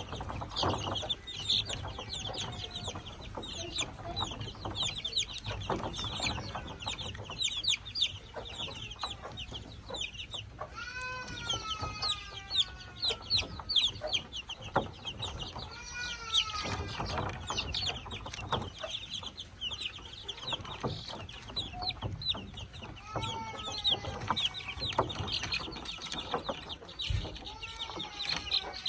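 A brood of five-day-old chicks peeping rapidly and without a break, with a hen among them giving a few longer calls that fall in pitch, now and then.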